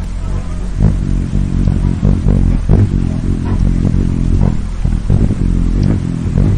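Hummingbird wings humming low and steady, with short chirps scattered through.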